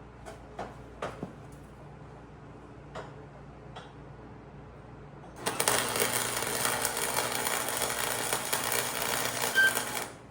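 A few light metallic clicks, then about five seconds in an electric welding arc strikes and crackles steadily for about five seconds before cutting off suddenly as the weld bead is stopped.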